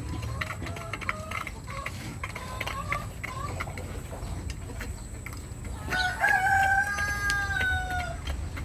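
Faverolles chickens clucking with short rising calls, then a rooster crows once, a long held call of about two seconds that falls slightly at the end.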